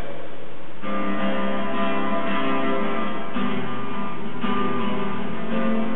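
Guitar strumming chords, starting about a second in, with a new chord roughly every second.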